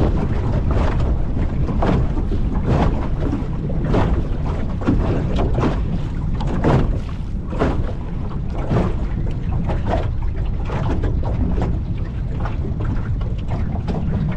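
Wind buffeting the microphone over water slapping and splashing against an aluminum jon boat's hull in short, irregular slaps, about one or two a second.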